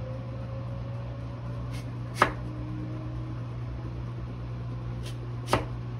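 Kitchen knife slicing through an apple and knocking on a wooden cutting board: two sharp knocks, about two seconds and five and a half seconds in, with a couple of fainter ones. A steady low hum runs underneath.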